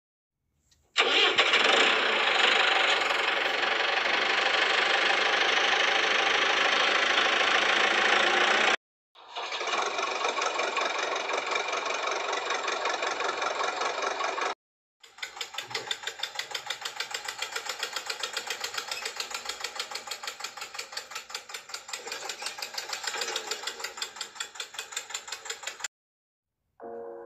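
Toy JCB backhoe loader's motor whirring as it tows a toy tractor and its loaded trolley. It comes in three stretches broken by short silences, and in the last stretch it throbs at about four or five beats a second.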